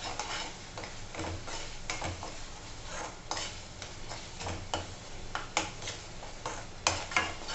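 Steel spoon stirring and scraping thick masala paste around a steel kadhai, giving irregular metallic scrapes and clinks, with a low sizzle of the paste frying in oil beneath.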